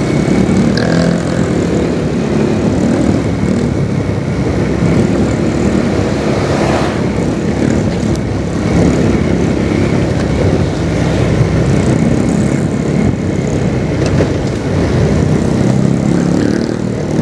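Vehicle engine and road noise while driving through city traffic: a steady engine drone.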